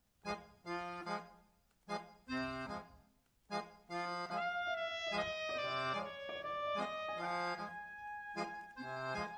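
Instrumental background music: short repeated chords over bass notes in a bouncy rhythm, with a held melody line joining about four seconds in.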